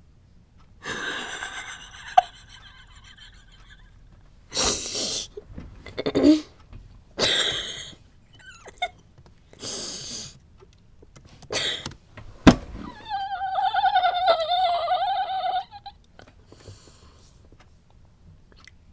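A person wheezing with laughter: a string of breathy, gasping bursts, then a long, high, wavering squeal about two-thirds of the way through. A sharp knock comes just before the squeal.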